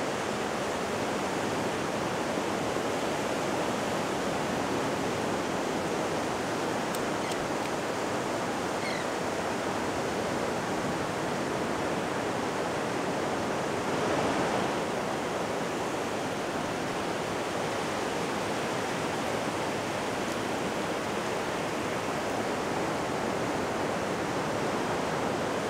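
Ocean surf breaking and washing up a flat sandy beach, a steady rush that swells slightly about halfway through.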